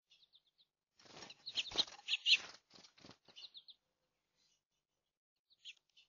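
Small finches fluttering their wings at close range as they land, with short high chirps; the wingbeats come in a burst of quick strokes from about a second in, loudest near the middle, and a faint chirp follows near the end.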